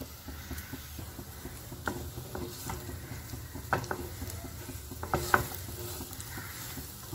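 A spatula stirring and pressing a sticky paste of blended dates in ghee in a non-stick kadai: rapid small scraping clicks of the spatula on the pan, with a few louder knocks about two, four and five seconds in.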